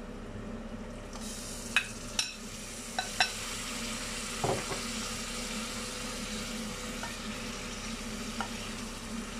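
Raw chicken pieces tipped into hot spiced oil in a saucepan, setting off a steady sizzle about a second in, with a few sharp knocks as the pieces go in. The chicken is then stirred through the masala with a spoon.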